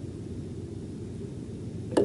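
Steady low rumbling background noise, with one sharp knock right at the end.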